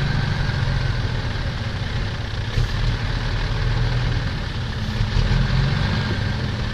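Diesel engines of a six-wheel dump truck bogged in mud and a farm tractor working to free it, running steadily with a low hum; a slightly higher engine note joins about two-thirds of the way in.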